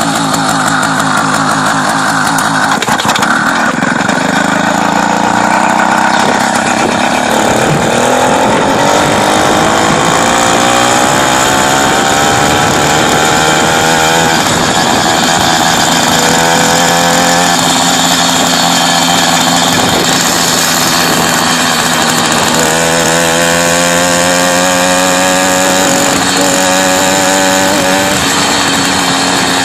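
Small engine of a motorized bicycle running under way. Its pitch climbs over several seconds as the bike picks up speed, then holds fairly steady.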